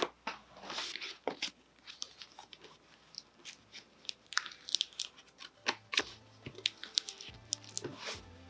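A cut stencil on transfer tape with its paper backing being handled and rubbed flat onto a denim jacket by hand. It makes irregular small crinkles, crunches and ticks.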